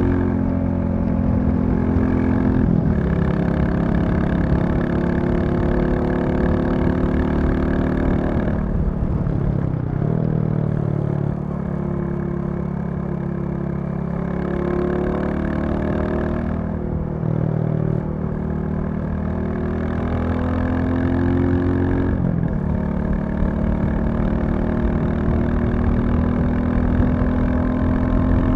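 Royal Enfield Classic 350's single-cylinder engine running on the move, its note changing pitch several times: a drop about nine seconds in, a lower stretch with a brief break, then rising again past twenty seconds, as with throttle and gear changes.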